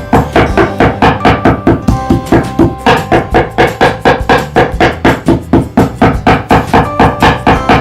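Upbeat background music with a steady, even percussive beat of about three to four strikes a second over held melodic notes.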